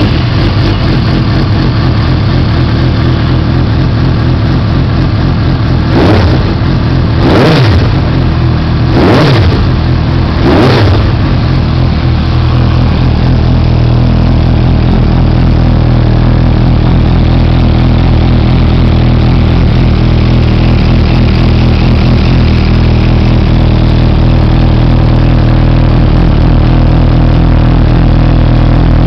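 Suzuki GSR750's inline-four engine through a Yoshimura aftermarket exhaust, idling, with four quick throttle blips about six to eleven seconds in, then settling back to a steady idle.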